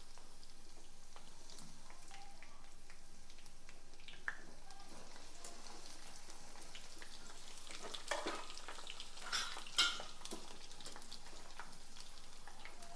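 Peanuts and garlic frying in oil in a pan with a steady, quiet sizzle. A spoon stirs and scrapes the pan a few times, once about four seconds in and again around eight to ten seconds in.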